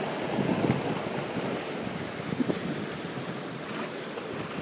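Steady rushing outdoor background noise, with no distinct event standing out.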